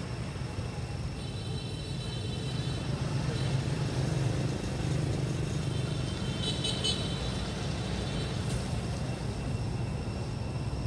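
Steady low rumble of road traffic. Thin high-pitched tones sound from about a second in for a couple of seconds, and a brief, brighter high chirping comes just past the middle.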